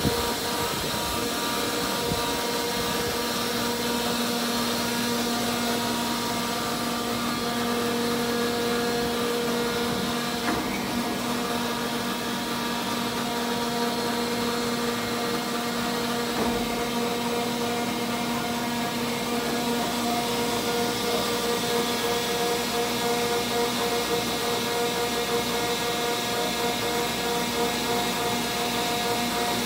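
Landis plain cylindrical grinder running under power: a steady machine hum with several steady tones over an even noise. The lowest tone fades about twenty seconds in.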